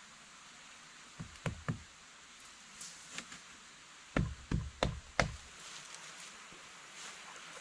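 Dull knocks on a fallen tree trunk: three quick thumps about a second in, then four heavier, deeper ones around four to five seconds in.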